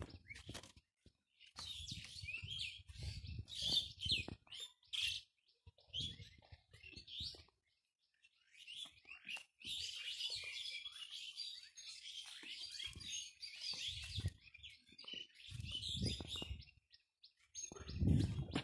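Many small birds chirping and twittering busily, with short pauses. Dull low thumps come and go underneath.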